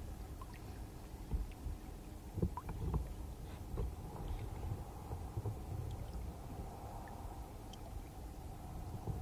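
Water lapping against the hull of a small fishing boat, heard as an uneven low rumble, with a few light knocks about two and a half and three seconds in and a faint steady hum underneath.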